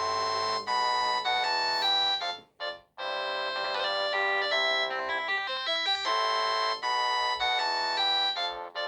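Samsung SGH-T100 mobile phone playing a polyphonic ringtone melody of short notes in quick succession, breaking off about two and a half seconds in and resuming half a second later.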